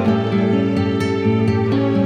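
Background music: soft plucked-string, guitar-like notes in a quick, even pattern.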